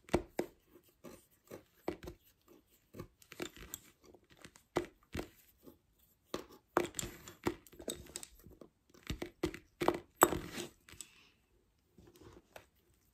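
Lace bobbins clicking against one another in quick, irregular clusters as pairs are worked on the lace pillow, thinning out near the end.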